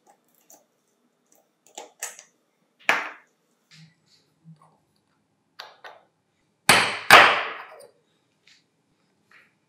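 Small steel parts of an impact driver's planetary gear carrier clicking and tapping against tools and a wooden workbench as the carrier is taken off the motor and handled, with two louder knocks in quick succession about two-thirds of the way through.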